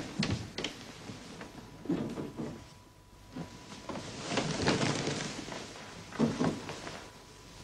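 Someone getting out of a wooden bed: soft knocks and thumps with rustling as bare feet step down onto the floor, the longest rustling stretch a little past the middle.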